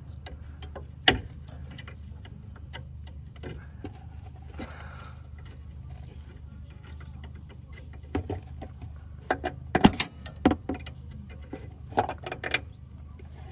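Scattered clicks and clinks of hand tools and metal parts while a new anti-roll bar bush is worked into its clamp bracket under a car, with a sharp knock about a second in and a run of knocks and clinks near the end. A steady low hum lies underneath.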